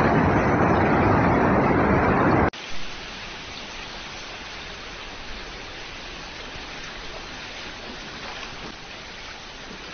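Floodwater rushing in a loud, steady torrent that cuts off abruptly about two and a half seconds in. After that comes a quieter, even hiss of water.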